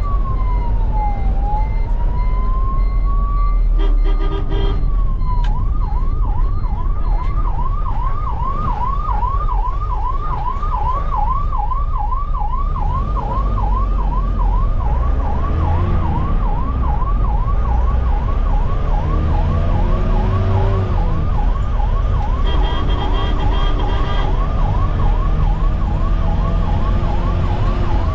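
Ambulance siren heard from inside the cab, first a slow rising and falling wail, then about five seconds in switching to a fast yelp of two to three sweeps a second that runs on. A steady horn-like blast sounds twice, once just before the switch and again near the end, over the low rumble of the vehicle.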